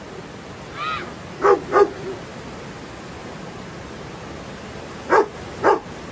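A dog barking in two pairs, one about a second and a half in and one near the end, with a short whine just before the first pair. Under it runs the steady rush of fast-flowing floodwater.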